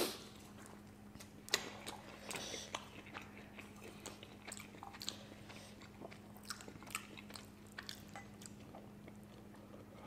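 Close-miked eating of spicy instant fire noodles with chopsticks: quiet wet chewing and slurping with many small scattered mouth clicks. A faint steady hum lies underneath.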